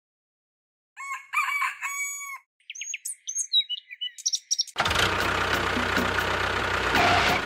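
A rooster crowing, then birds chirping with short rising and falling calls. About five seconds in, a steady rushing noise takes over.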